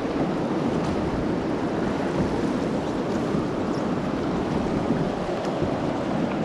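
Steady rush and splash of river water around a wooden rowing dory under oars, with wind on the microphone.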